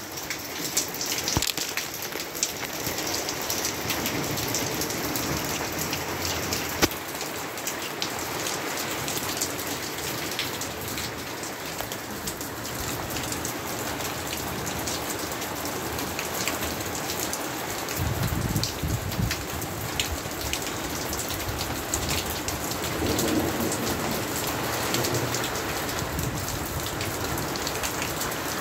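Steady rain falling and pattering on surfaces, full of small drip ticks, with one sharper tick about a quarter of the way in. About two-thirds of the way in, a low rumble of distant thunder rises under the rain.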